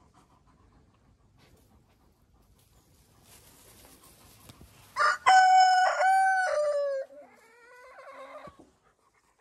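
A rooster crows once, starting about five seconds in: a loud cock-a-doodle-doo of about two seconds that trails off into a quieter final note.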